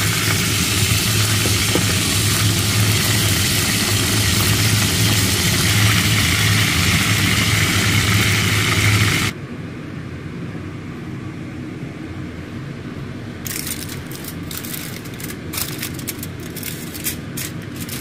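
Chicken drumsticks sizzling in hot oil in a pan, over a steady low hum. The sizzling cuts off abruptly about nine seconds in, leaving a quieter stretch with scattered light crackles and clicks in the last few seconds.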